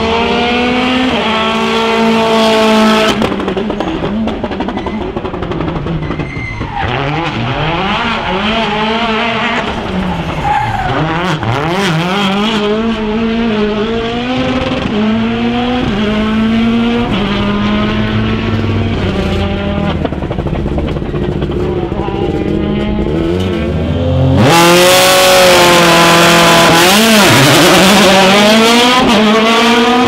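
Rally cars' turbocharged four-cylinder engines being driven hard, revving up and dropping back again and again as they accelerate, shift and brake for corners. About three-quarters of the way through a car comes close and the sound gets much louder and brighter.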